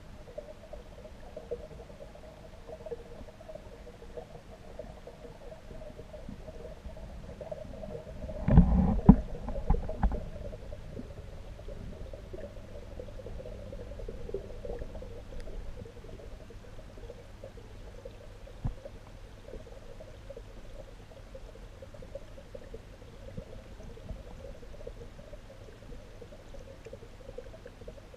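Muffled underwater sound picked up by a submerged camera: a steady low hum, with a short run of loud knocks and thumps about eight to ten seconds in.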